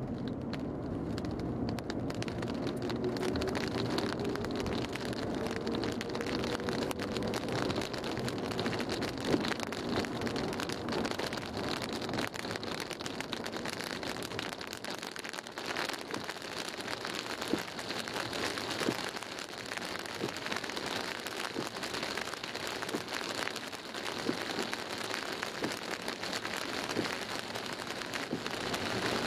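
Heavy rain hitting the roof and windscreen of a moving car, heard from inside, growing heavier after the first couple of seconds. The car's engine note rises over the first several seconds as it speeds up.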